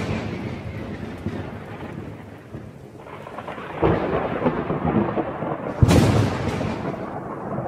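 Thunder sound effect: a steady rumble with a crack of thunder about four seconds in and a sharper, louder crack about six seconds in, then rumbling on.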